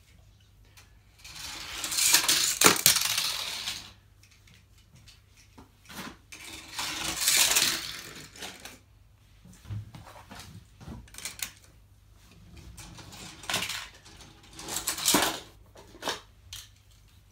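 Toy cars rolling fast down a segmented plastic track ramp, a rattling clatter that swells and fades with each run, about four runs, the first the longest and loudest, with a few separate clacks between.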